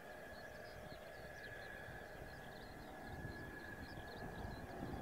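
Distant jet engine rumble of a Mitsubishi F-2's F110 turbofan on its takeoff run, growing louder over the last couple of seconds, over a steady high whine. Faint high chirps come and go.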